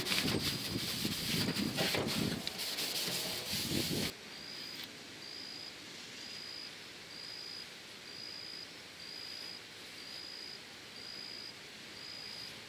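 A cloth rag scrubbing the bare aluminum inside of a jon boat's transom in quick rubbing strokes. It cuts off about four seconds in, leaving quiet outdoor background with an insect chirping in a steady rhythm about twice a second.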